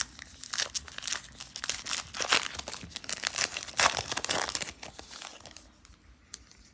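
Crinkling and rustling of a trading-card pack wrapper and cards being handled, busiest for the first five seconds and dying down near the end.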